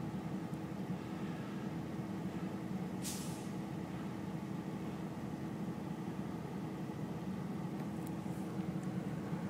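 Diesel locomotives running in a low, steady rumble with a hum, heard from inside a car cabin. About three seconds in comes a short hiss of air from the air brakes.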